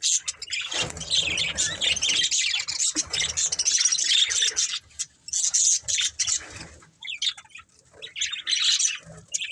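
Budgerigars chirping and chattering in quick, high-pitched warbling bursts, easing to a brief lull about seven seconds in before picking up again.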